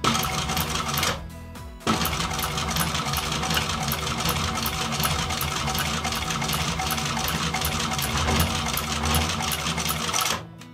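TAKING TK-341N industrial sewing machine stitching leather, with a steady run of needle strokes. It sews briefly, pauses for under a second, then runs on for about eight seconds and stops near the end.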